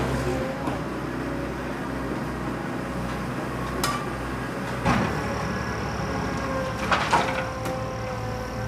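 Small electric motors of radio-controlled model construction machines running with a steady whine and hum, with a few sharp clacks about four, five and seven seconds in.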